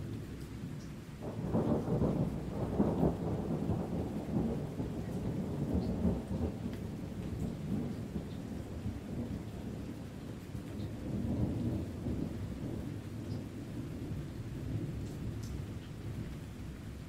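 Deep rolling thunder rumbling on and off, swelling loudest about a second and a half in and again around eleven seconds, with steady rain and scattered raindrop ticks.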